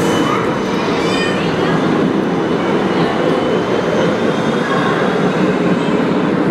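Red Bernmobil Siemens Combino low-floor articulated tram running past on grooved street rails, a steady rolling rumble of wheels and running gear.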